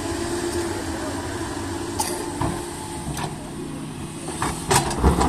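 JCB excavator's diesel engine running steadily, with a few sharp knocks about two seconds in, a second later, and again near the end.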